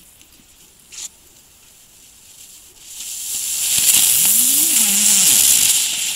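Lesli ground spinner firework catching and burning, a loud spitting hiss of sparks that builds about three seconds in and holds, with a whirring tone that rises as it spins up. A short click comes about a second in.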